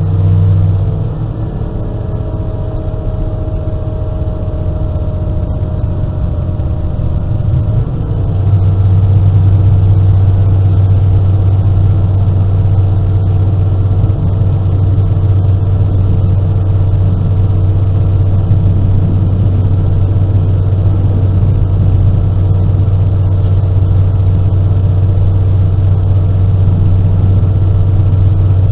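Diesel engine of an SNCF X 73500 railcar heard from the cab as it pulls away from a stop. It runs at a moderate level for several seconds, then about eight seconds in the engine note steps up and stays loud and steady under power.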